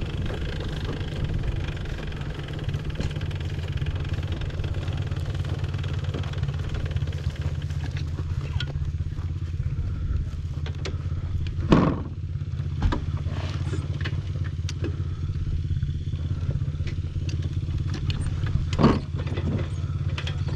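Suzuki LT500R Quadzilla's 500 cc two-stroke single-cylinder engine running at low, steady throttle as the quad is ridden slowly. Two short sharp knocks stand out, about halfway through and near the end.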